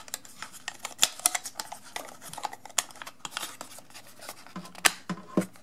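Black plastic battery cover of a DM4 digital microscope being slid back on over the battery: a string of sharp plastic clicks and scratchy scraping, with the loudest click near the end as it snaps into place.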